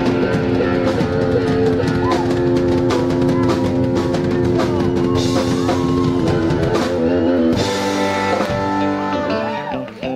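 Rock band playing: electric guitars over a drum kit.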